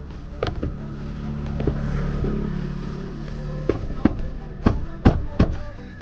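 A run of about seven sharp plastic knocks and snaps, coming faster and louder in the second half, as a Porsche Taycan's interior door trim panel is hung back on the door and pressed into place. Background music plays underneath.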